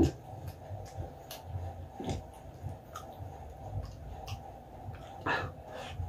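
Close-up mouth sounds of someone eating balut: chewing with soft wet clicks and smacks scattered through, and breathing.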